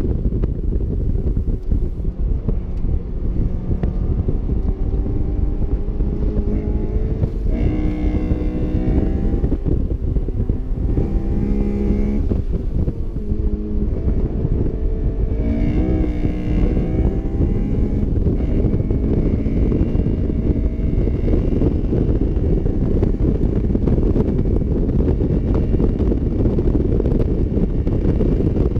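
Honda S2000's 2.0-litre F20C four-cylinder engine pulling hard on track, heard from the open-top cockpit under heavy wind buffeting on the microphone. The engine note climbs in several rising sweeps with short breaks between them through the middle, then sinks back under the wind for the last third.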